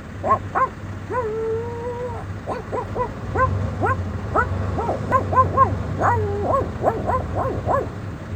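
A dog yipping and whining in a quick run of short, high calls that rise and fall, with one long drawn-out whine about a second in. A steady low hum runs underneath.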